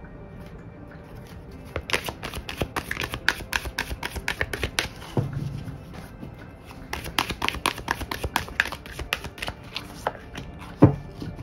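A deck of oracle cards shuffled by hand: two runs of quick, crisp flicking clicks as the cards slide and riffle, with a single louder thump near the end.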